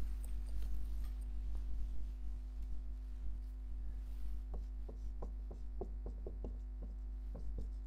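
Writing on a board: a run of light, irregular taps starting about halfway, over a steady low mains hum.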